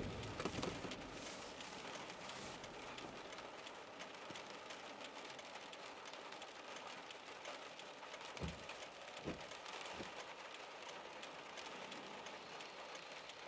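Faint patter of rain on the car's windshield and roof, heard from inside the cabin: an even hiss dotted with small ticks. About eight to ten seconds in come three short, low thumps.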